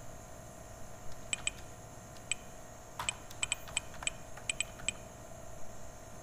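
Computer keyboard typing: about a dozen separate keystrokes at an irregular pace, some in quick little runs.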